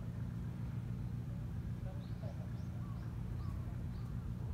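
Steady low background rumble, with a small bird chirping a quick run of short, high, falling notes, about three a second, in the second half.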